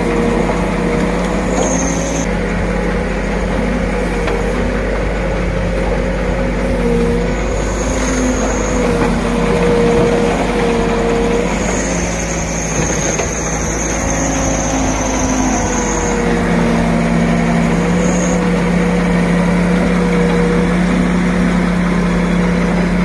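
Case backhoe loader's diesel engine running steadily as the boom and bucket swing and dig, with a wavering whine and high-pitched squeals that come and go.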